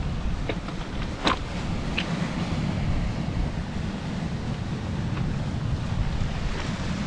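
Wind buffeting the microphone over the steady wash of surf, with a few short clicks, the sharpest about a second in.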